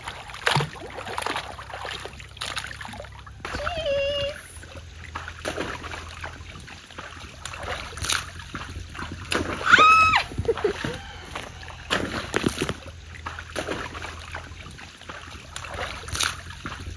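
Water splashing and slapping in a small inflatable pool as a toddler plays in it, in irregular bursts. A short voiced sound about four seconds in and a high-pitched cry about ten seconds in rise above the splashing.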